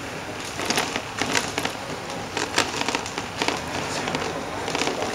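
Irregular sharp crackles and clicks over a steady low rumble, heard from inside a moving vehicle.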